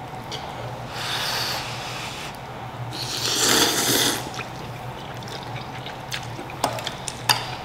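Slurping of soupy spicy instant noodles: two noisy slurps, the second longer and louder, then a few light clinks of a fork against the bowl, over a steady low fan hum.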